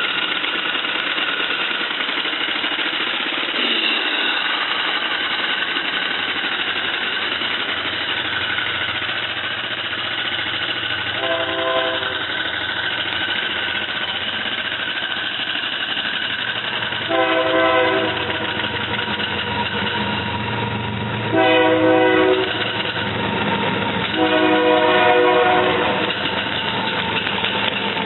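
1-inch scale live-steam Fowler ploughing engine running steadily, its steam whistle blown in four short blasts, the first fainter and the last the longest.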